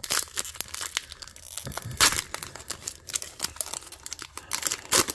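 Foil trading-card pack being torn open and crinkled in the hands: a rapid run of sharp crackles, with the loudest tears about two seconds in and again near the end.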